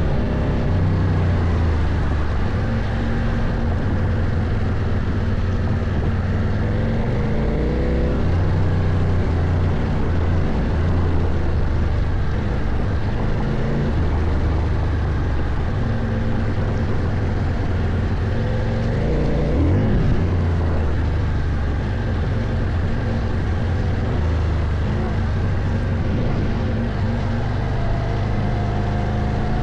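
CFMOTO Ibex 800T's parallel-twin engine running under load as the bike is ridden off-road, its note rising and falling with the throttle. There is one sharp swing in engine pitch about two-thirds of the way through.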